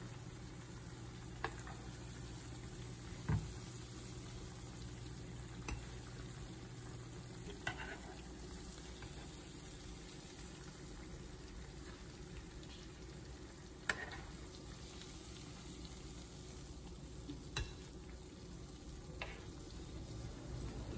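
Batter-coated Oreos frying in a pan of hot oil, a steady sizzle, broken by occasional sharp clicks and knocks, the loudest a low thump about three seconds in. A low hum underneath stops about seven seconds in.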